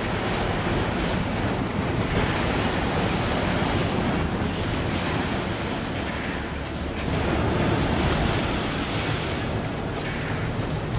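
Sea waves breaking and washing over shoreline rocks, with wind buffeting the microphone. The surf swells louder about two seconds in and again around eight seconds.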